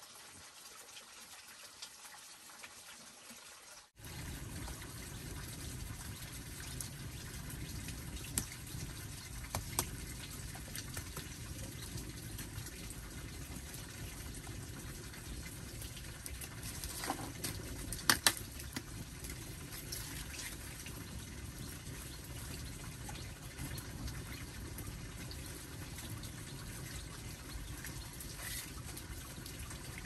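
Wood fire burning in the open mouth of a clay stove: a steady rushing of tall flames that starts about four seconds in after a quieter stretch, with a few sharp crackles, the loudest a pair of pops about two-thirds of the way through.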